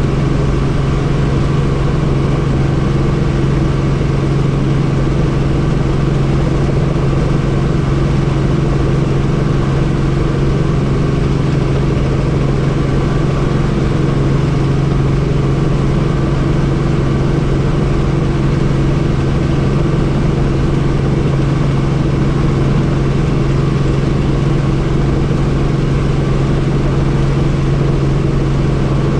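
Helicopter in steady flight: a continuous loud drone with a strong low hum and higher steady tones over a rushing noise, unchanging throughout.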